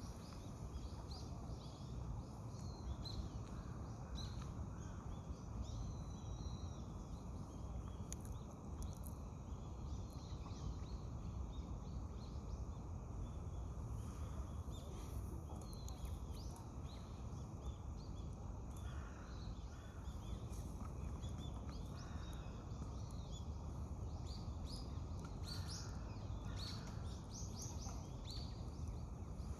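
Steady low outdoor background rumble with short, high bird chirps scattered throughout, coming more thickly in a few clusters.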